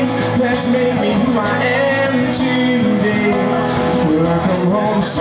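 Live music: a man singing over a strummed acoustic guitar, his voice sliding between held notes.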